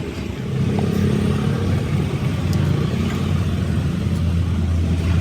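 Tractor engine running steadily under load, louder from about half a second in.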